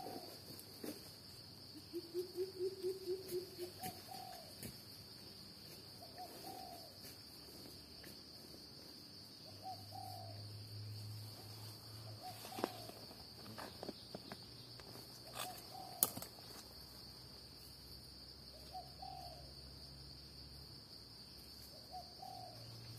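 Forest insects keep up a steady high-pitched drone, with a bird's short call repeating every couple of seconds. About two seconds in comes a quick run of lower rapid notes, the loudest sound here. A few sharp knocks from a hand hoe working the soil fall around the middle.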